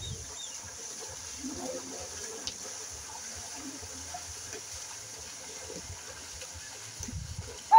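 Water splashing and sloshing in a flooded paddy field as water buffaloes work the mud, with a sudden loud sound right at the end.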